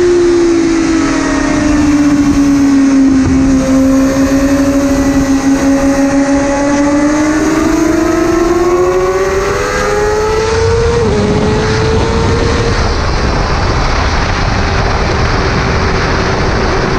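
Motorcycle engine lapping a race track under wind rush. The revs sink slowly, then build steadily, drop quickly about eleven seconds in as at an upshift, and hold steadier after.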